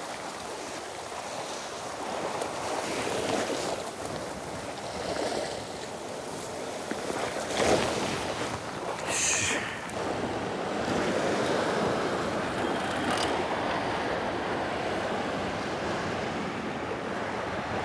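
Sea surf washing against a rocky shore, a steady rush of water with wind on the microphone. A couple of short, sharper noises come near the middle.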